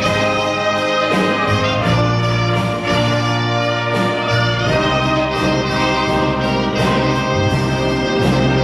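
An amateur orchestra playing loudly, with brass to the fore: trumpets and trombones in sustained full chords over strong low bass notes, the harmony changing every second or so.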